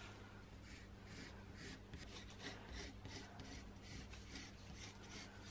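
Pencil drawing around a paper template on corrugated cardboard: a faint run of short scratching strokes of the lead on the card.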